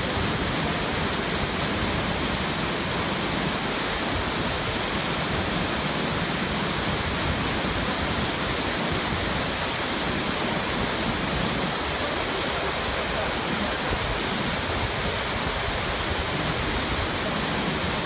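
A waterfall rushing steadily as a small cascade pours over rock into a plunge pool.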